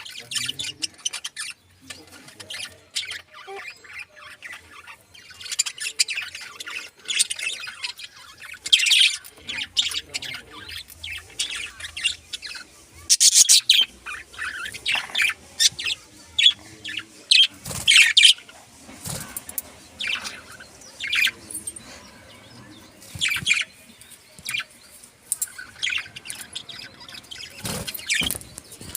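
A colony of pet budgerigars and finches chirping, with many short, overlapping calls that come in irregular bursts.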